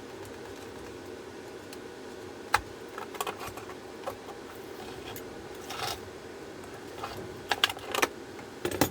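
Hands working on an opened lithium battery pack: scattered clicks, knocks and brief rustles of plastic and wrapping being handled. The sharpest click comes about two and a half seconds in, and several more come in quick succession near the end, over a steady low hum.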